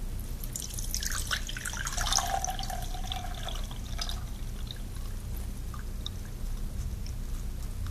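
Water with oil-soaked absorbent granules poured from a glass beaker through a wire-mesh strainer into another glass beaker: splashing and trickling, with granules landing in the mesh, for about four seconds. It then tapers off to a few drips.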